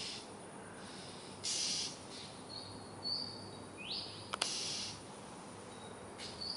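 Oriental magpie-robin giving two harsh, rasping half-second calls, broken by short thin whistled notes, one of them a quick rising whistle. These are the screaming calls that the uploader takes for a scared bird at night. A single sharp click comes just before the second rasp.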